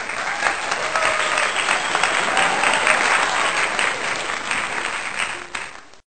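Applause: a crowd clapping, a dense patter of many claps that starts abruptly and tails off near the end.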